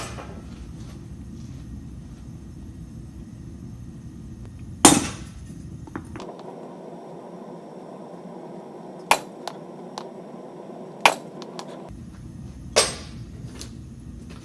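Hammer strikes on steel, forging a knife blade: about five separate sharp blows a second or more apart, each with a brief ring, the loudest about five seconds in, over a steady low rumble that drops away for several seconds in the middle.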